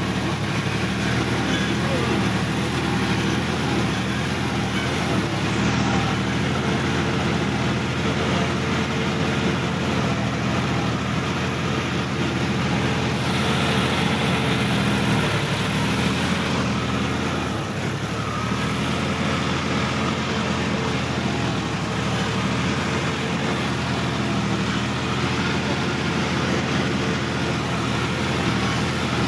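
Sonalika DI-50 RX tractor's diesel engine running steadily while the tractor is driven across a wet field, heard close up from the driver's seat.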